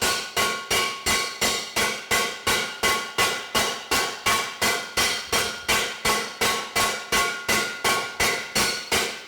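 Lighter spring-steel slapper striking sheet metal with even blows, about three a second, each with a short metallic ring. The sheet metal is being planished smooth.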